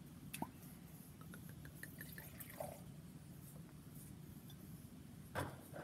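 Cork pulled from a wine bottle with a short click, then red wine poured into a stemmed glass in a faint trickle of small drips. A brief louder sound comes near the end.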